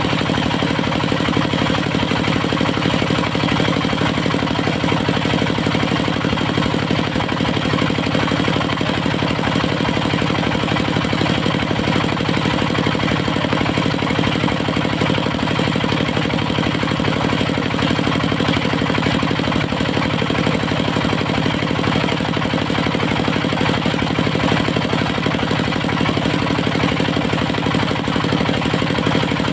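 Engine of a portable circular sawmill running steadily at constant speed, with an even, fast beat.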